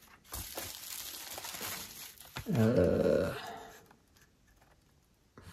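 Packaging rustling and crinkling for about two seconds as the next carded diecast car is pulled from the shipment box, followed by a short wordless hum of a voice.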